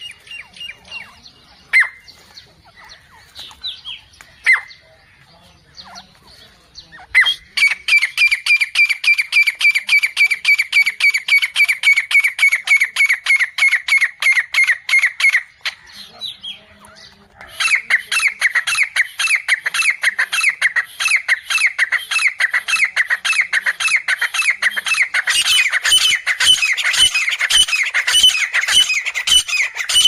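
Female grey francolin calling: a few scattered short calls, then a long, fast run of repeated high notes at about five a second. After a pause of about two seconds, another fast run starts and grows louder toward the end.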